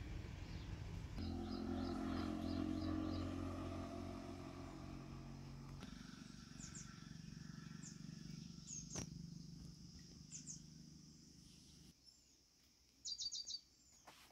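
Small birds chirping in short high calls over a steady low hum, which cuts off abruptly about twelve seconds in; a quick run of chirps follows near the end.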